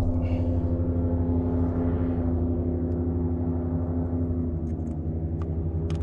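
Outboard boat engine running steadily at low revs, a constant low drone whose pitch shifts slightly about four and a half seconds in.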